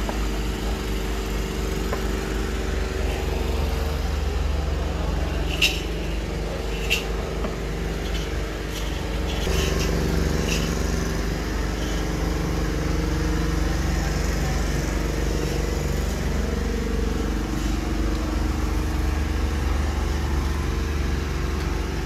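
Steady low drone of a running engine, its pitch shifting slightly now and then, with two sharp clicks about six and seven seconds in.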